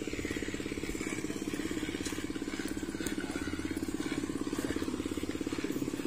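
A small engine running steadily at idle, with a fast, even throb.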